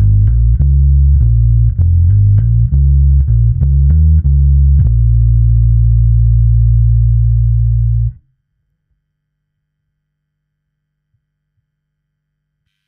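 Electric bass guitar played through a Gallien-Krueger MB150 amp simulation (Audified GK Amplification 2 LE plugin): a quick run of plucked notes, then a last note held for about three seconds that cuts off suddenly, followed by near silence for the last four seconds or so.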